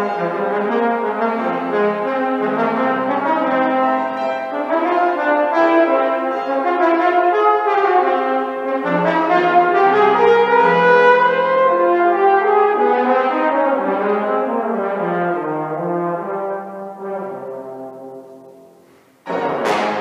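Trombone playing a melodic line over piano accompaniment. The music grows softer toward the end, then a sudden loud chord comes in just before it ends.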